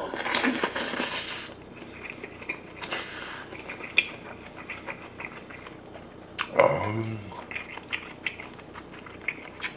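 Close-miked eating of kimchi jjigae and rice from a spoon: a loud slurp over the first second or so as the spoonful goes in, then wet chewing with lip smacks and small clicks. About six and a half seconds in there is a short hummed "mm".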